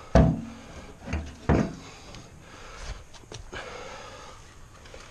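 A man's short, breathy grunts of effort, three in the first two seconds, then a few light knocks and rustling.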